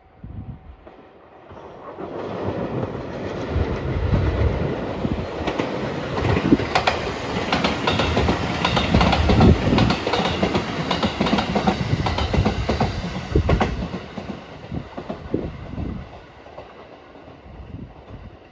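Rapid Marine Liner electric multiple-unit train passing. Its wheels clatter over the rail joints in a fast run of clicks. The sound builds over the first few seconds, stays loud through the middle, then fades away after about fourteen seconds.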